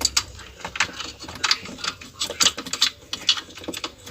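Irregular clicks and light knocks of parts being handled while a washing machine's motor guard is fitted back over the motor.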